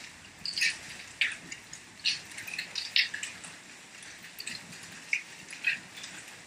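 Rainwater dripping close by in a heavy thunderstorm downpour: irregular sharp drips, about one or two a second, over a faint steady hiss of rain.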